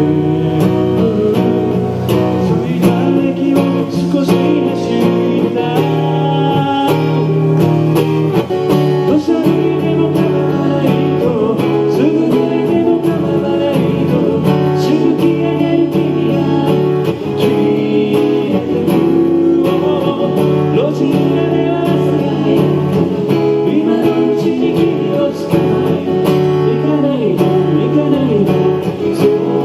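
Acoustic guitar playing a steady song accompaniment, with a voice singing over it.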